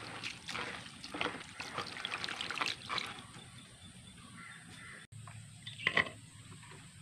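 Water splashing and sloshing as a hand swishes cauliflower florets around in a plastic basin, with irregular splashes over the first three seconds, then quieter. A short, sharper sound comes about six seconds in.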